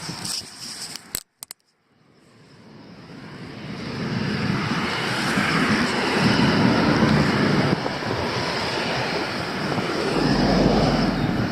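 Rushing noise of passing traffic on a nearby road mixed with wind, swelling gradually after a short break in the sound and then holding steady. A few light clicks come at the start.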